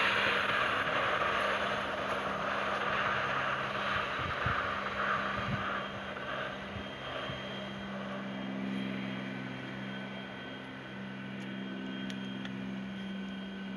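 Canadian National 89, a 2-6-0 steam locomotive, working its train slowly forward. A loud hiss of steam fades away over the first several seconds with a few soft chuffs, and after that a steady low hum remains.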